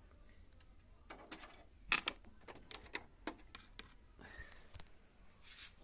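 A run of light plastic clicks and knocks over about two seconds, the loudest about two seconds in, as a mains power cord plug is pushed into a printer's power socket; a short rustle near the end.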